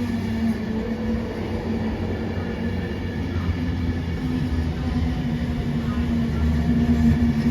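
Avanti West Coast express train running into the platform: a steady hum with several held tones over wheel-on-rail rumble, growing gradually louder as it approaches.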